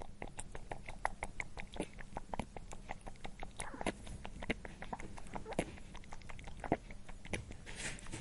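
A rabbit chewing a carrot: rapid, irregular crisp crunches and clicks, several a second, with a brief rustle near the end.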